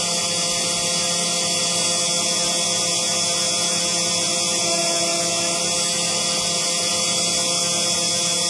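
CNC engraving machine running: a steady hiss from the spindle with several held motor tones over it, some of which drop out and come back near the end.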